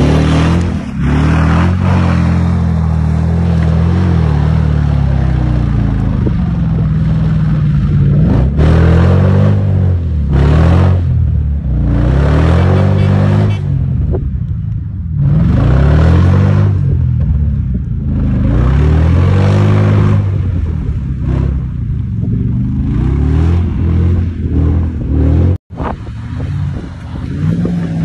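Mitsubishi Pajero's 5.0-litre engine revving hard again and again under load as the off-road vehicle claws up a steep muddy slope, its note rising and falling over and over. The sound cuts out for an instant near the end.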